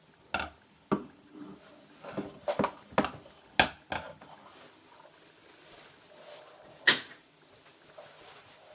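A string of sharp clicks and knocks from handling and fitting the hard plastic parts of an LED rotating disco bulb, seven or so in the first four seconds, then a single louder knock near the end.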